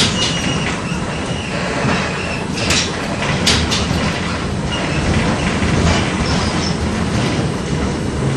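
LVS-86K articulated tram running along the track, heard from on board: a steady rumble of wheels and running gear. A thin high wheel squeal sounds in the first couple of seconds, and a few sharp clicks come about three seconds in.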